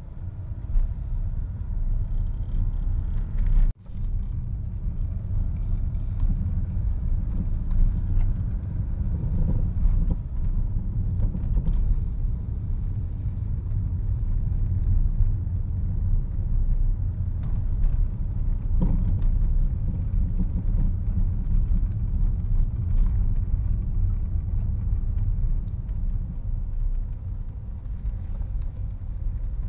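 Car cabin noise while driving on a narrow paved road: a steady low rumble of engine and tyres. It cuts out briefly about four seconds in.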